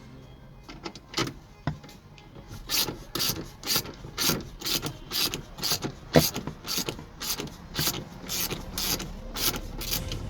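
Repeated mechanical ratcheting clicks in strokes of about two a second, typical of a hand ratchet being worked.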